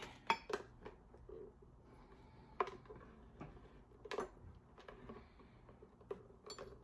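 A few light knocks and clicks of a blender being handled and turned around on a counter, with the sharpest knocks about two and a half and four seconds in.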